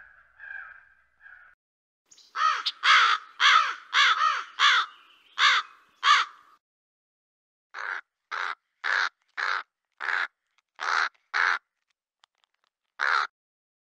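Crows cawing: a run of about eight loud caws at about two a second, then, after a short pause, a second run of about eight shorter caws, and a single caw near the end.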